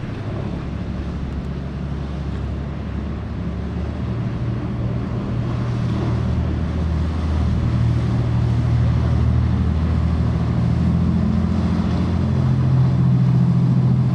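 Motorboat engine droning steadily at a low pitch and getting louder, over a background hiss of wind and water.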